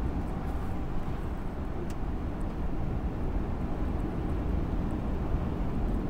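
Steady low rumble of a vehicle driving along a snow-covered highway, heard from inside the cabin: engine and road noise.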